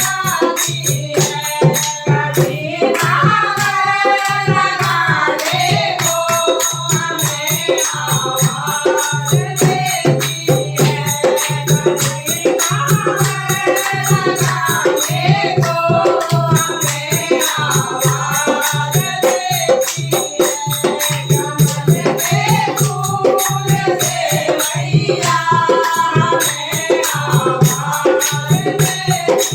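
Hindi devotional bhajan sung with percussion accompaniment: the melody comes in sung phrases over a fast, even run of percussion strokes and a steady low drone.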